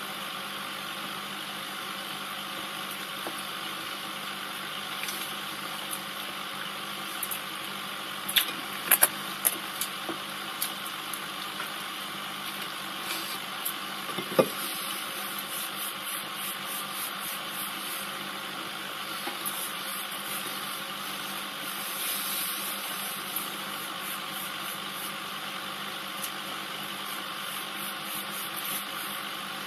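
Aquarium air pump and filter humming steadily, with water bubbling from the air stream. A few short clicks come around nine seconds in and again around fourteen seconds in.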